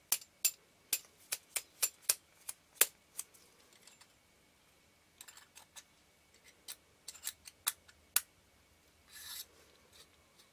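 Small sharp metal-and-glass clicks from a camera lens barrel being handled, about two or three a second for the first few seconds, while a tightly fitting lens element is worked in its seat. After a pause there are a few more scattered clicks, then a brief rubbing sound.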